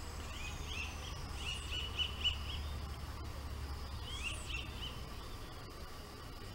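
Birds calling: short chirps in clusters, with a quick run of repeated chirps about a second and a half in and another burst about four seconds in, over a steady low rumble.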